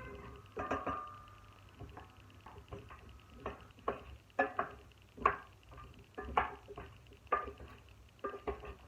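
Dishes and kitchen utensils clinking and knocking irregularly, about a dozen sharp strikes, a few ringing briefly.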